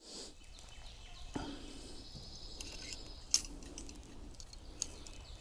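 Steel grill tongs clicking and clinking against a wire grill grate as sausages are turned: a few sharp metal clicks over a quiet background. A thin high steady tone runs for about two seconds starting a second in.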